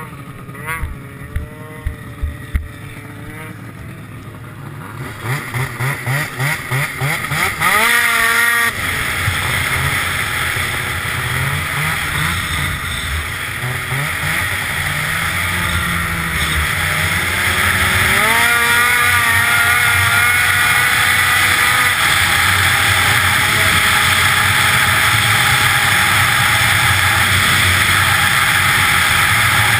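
Arctic Cat ZR 900 two-stroke snowmobile heard from the rider's seat. A few short throttle blips near idle give way to quick pulsing revs, then a sharp rise in revs about eight seconds in as the sled pulls away. Engine and track run hard, with a further climb in revs past the middle, then hold high and steady at speed.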